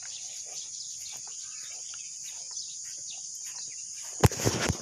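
Steady high-pitched drone of insects with a few faint bird chirps. About four seconds in, a loud, brief rustling thump.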